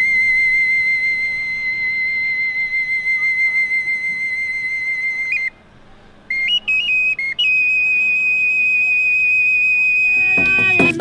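A small hand-held whistle blown in long, pure high notes: one held note with a slight waver, a brief break about five and a half seconds in, a few quick stepping notes, then a second, slightly higher held note. Just before the end, music with a shaken rattle comes in.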